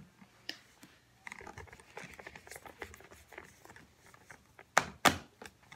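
Soft cloth rubbing and small taps as a plastic baby doll is wiped with a washcloth, with two sharp knocks close together near the end.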